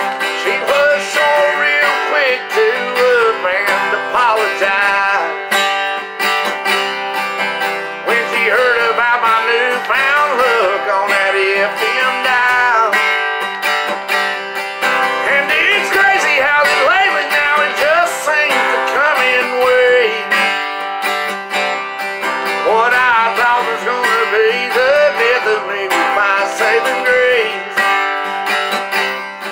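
Steel-string acoustic guitar strummed steadily in a country song accompaniment, with a wavering, gliding melody line over the chords.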